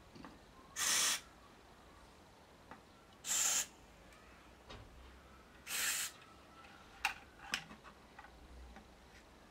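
Aerosol switch cleaner sprayed in three short hisses, each under half a second and about two and a half seconds apart, into an amplifier's control potentiometers to clean them. Two sharp clicks follow about seven seconds in.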